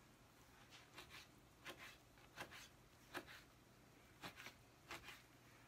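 Kitchen knife cutting soft roasted poblano chiles into thin strips on a plastic cutting board. The blade taps the board faintly, about two times a second, unevenly and often in quick pairs.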